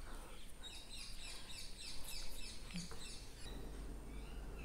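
A bird chirping faintly in a quick series of short, high notes, about five a second for nearly two seconds, followed by a couple of softer calls. A steady low hum comes in partway through.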